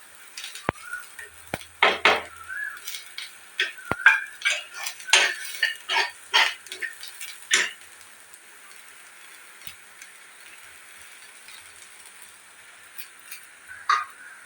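Kitchen utensils and dishes clinking and scraping in quick, irregular strokes for about the first half, then it goes much quieter apart from a few faint ticks.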